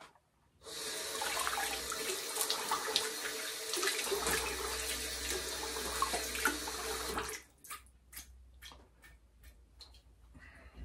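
Bathroom sink tap running into the basin while the face is rinsed. It comes on suddenly about a second in and is shut off after about six and a half seconds, leaving a few small splashes and drips.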